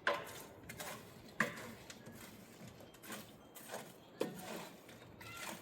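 A few separate sharp knocks or clinks at irregular intervals, the loudest right at the start and about a second and a half in.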